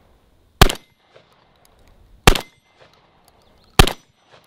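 Mossberg 930 12-gauge semi-automatic shotgun firing three rounds of birdshot field load in steady succession, about a second and a half apart, each a sharp report with a short tail.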